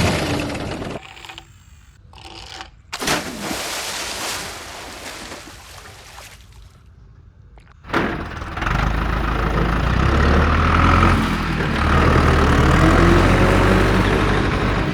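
A vehicle engine sound that cuts in and out, then runs steadily and loud with a deep, low note from about eight seconds in.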